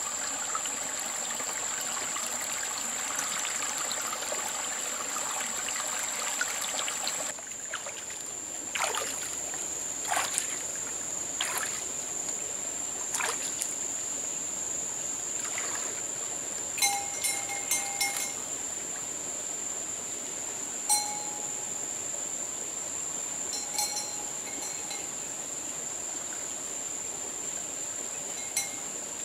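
Stream water trickling and flowing, fuller for the first seven seconds or so and then thinner, with scattered short sharp sounds over it. A steady high-pitched whine runs underneath throughout.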